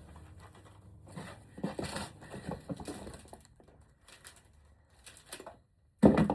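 Ribbon rolls and their plastic packaging being handled: irregular rustling and light tapping, with a short loud knock near the end.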